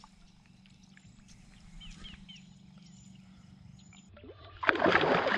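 A bass splashing in shallow pond water as it kicks free of the hand releasing it: a short burst of splashing about four and a half seconds in, after a quiet stretch with faint bird chirps.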